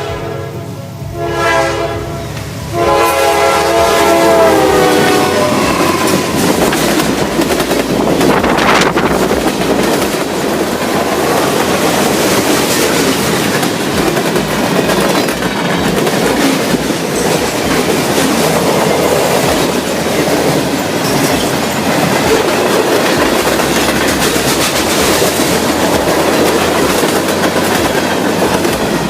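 Train horn sounding a multi-note chord in two blasts, then a train passing close at speed, its wheels rumbling and clicking over the rail joints for the rest of the time.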